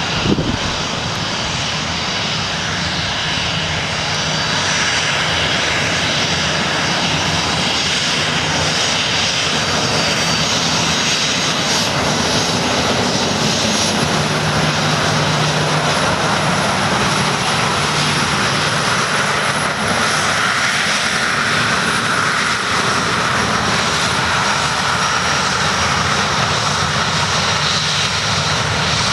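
Boeing 737-400 airliner's CFM56 jet engines running as it taxis: a loud, steady rumble with a thin high whine over it.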